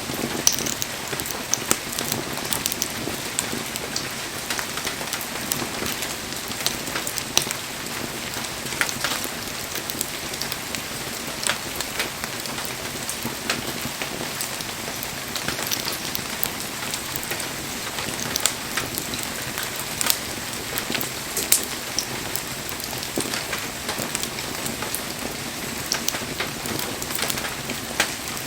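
Wood campfire burning, a steady hiss with frequent sharp crackles and pops from the burning logs.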